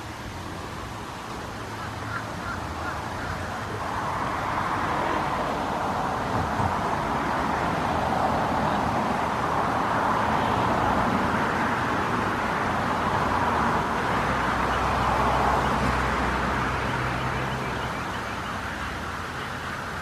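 Pond aerator fountains spraying water up and splashing back onto the pond surface, a steady hiss that grows louder through the middle and then eases.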